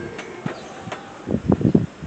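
A quick cluster of four or five dull knocks about one and a half seconds in, with a few faint clicks before them.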